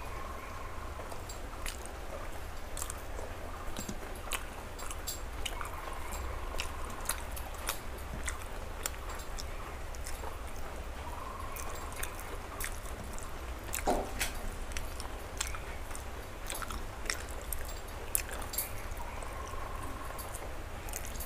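Close-up chewing and wet mouth clicks of someone eating soft paratha and curry by hand, over a steady low hum. A short, high whine-like call recurs every few seconds.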